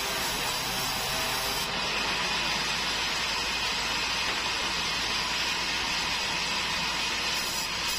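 Large band sawmill running steadily, its blade sawing a long keruing hardwood plank.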